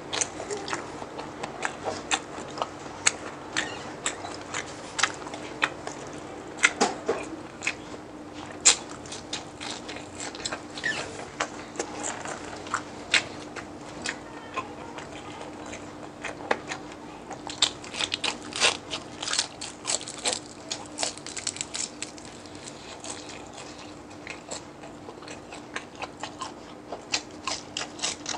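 Close-up crunching and chewing of crispy chicharon bulaklak (deep-fried pork mesentery): many sharp crunches in quick, irregular succession, busiest about two-thirds of the way through, over a steady low hum.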